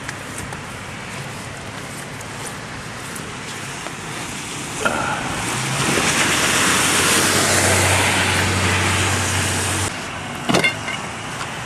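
A car passing close by on a rain-soaked road, its tyres hissing on the wet asphalt. The sound swells over a few seconds with a low engine hum beneath it and drops away about ten seconds in, followed by a brief sharp rustle and clatter.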